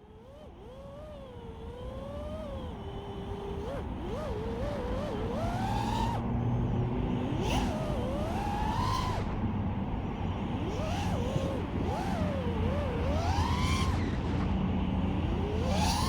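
Brushless motors of a small Pavo Pico whoop-style FPV drone whining, the pitch sweeping up and down again and again as the throttle changes, over a steady rumble of road traffic.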